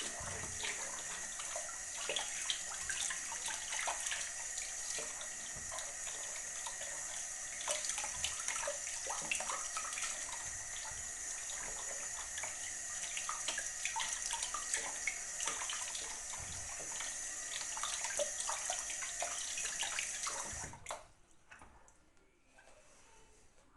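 Water running from a tap into a sink, with scattered light clicks over the flow, until the tap is shut off about 21 seconds in.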